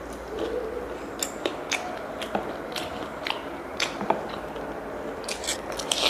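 Person biting and chewing crispy homemade deep-fried chicken, the battered coating crunching in sharp crackles, with a quick run of crackles near the end.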